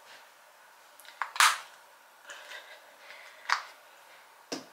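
A few short, sharp clicks or smacks with quiet between them, the loudest about one and a half seconds in.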